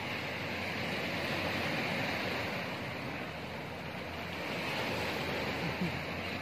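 Ocean surf washing over rocks, a steady rushing of waves that swells a little twice, with some wind on the microphone.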